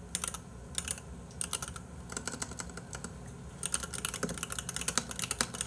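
Typing on a computer keyboard: irregular runs of quick key clicks, thickest about four seconds in.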